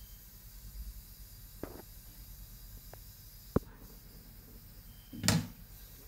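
Handling noises of a vintage metal hairdryer on a ceramic sink: a few small clicks and one sharp click, then a louder clunk near the end as it is picked up. The dryer is not running; only a faint steady hiss lies under it.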